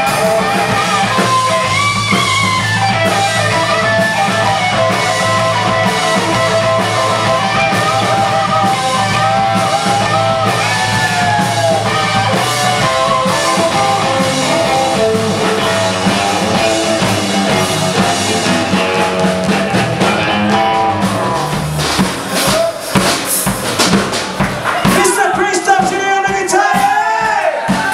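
Live rockabilly trio playing: Telecaster-style electric guitar over electric bass and drums in a steady rock and roll groove. About 22 seconds in, the steady bass line drops away and a run of sharp, separate drum and guitar hits follows.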